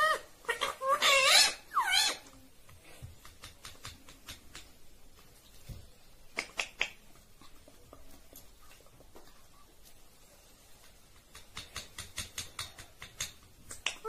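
Indian ringneck parakeet giving a burst of pitched, gliding calls in the first two seconds. After that it is mostly quiet, with scattered soft clicks and a quick run of clicks about twelve seconds in.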